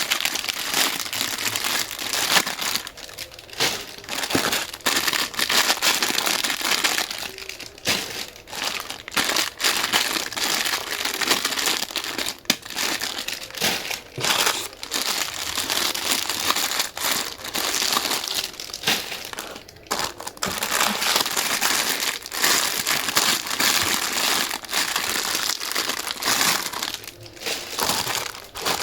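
Continuous crinkling and crumpling with short breaks, as of something being handled and squeezed.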